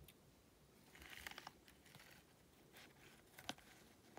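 Faint rustling of damp shredded paper bedding in a worm bin as fingers pick through it, with a short spell of rustles about a second in and a single sharp tick near the end.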